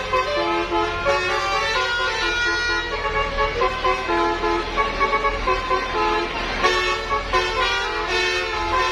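Bus telolet horn, a multi-tone air horn, playing a tune: pitched notes stepping up and down with no break between them.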